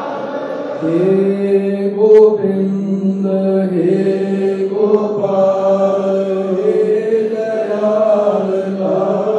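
Devotional chanting in a slow, drawn-out style, on long held notes that change pitch only slightly, beginning about a second in.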